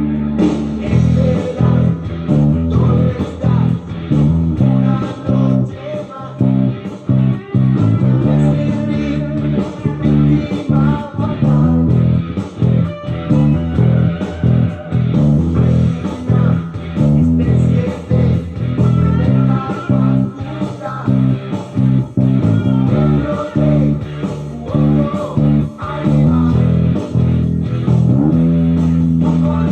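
Electric bass guitar playing a busy riff of short plucked notes, with longer held notes at the start and again near the end.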